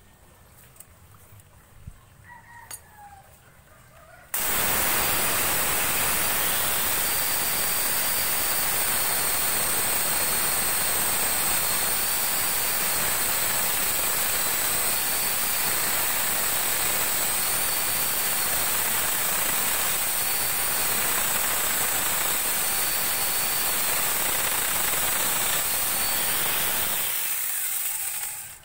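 Electric angle grinder fitted with a mini chainsaw attachment, switched on about four seconds in and running at full speed with a steady high whine, then winding down near the end after it is switched off.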